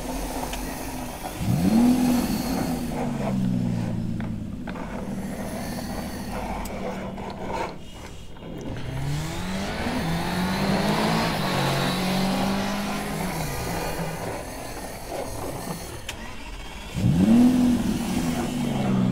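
Battery-operated toy vehicle running, with its engine sound rising steeply in revs three times, about a second and a half in, around the middle and near the end, each time holding and then falling away.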